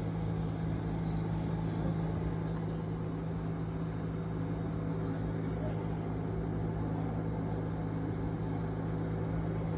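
A steady low hum from an engine or motor running at a constant speed, its pitch unchanging throughout.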